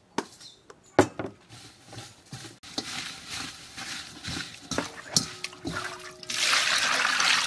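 Hands kneading and squeezing raw pork intestines with salt in a stainless steel bowl, giving irregular wet squelching and scraping, with a sharp knock about a second in. About six seconds in, water starts running into the bowl with a steady splashing.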